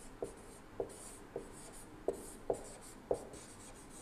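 Marker pen writing on a whiteboard: a string of sharp taps and strokes, about six, spaced irregularly, as the tip is pressed and drawn across the board, with a faint scratchy hiss from the tip gliding between them.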